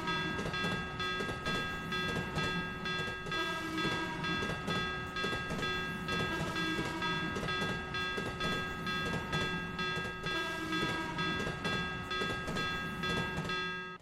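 Train running, with a repeating clatter over a steady hum and sustained high tones; it cuts off abruptly at the end.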